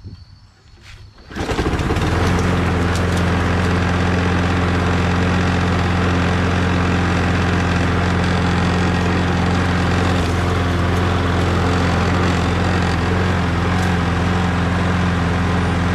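Toro Recycler Personal Pace lawn mower's Briggs & Stratton Quantum 6.75 engine starting about a second and a half in and then running steadily. It starts now that its unhooked spark plug boot has been reconnected.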